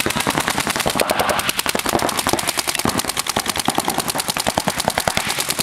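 Several paintball markers firing rapidly at once, a fast, unbroken rattle of many shots a second from overlapping players.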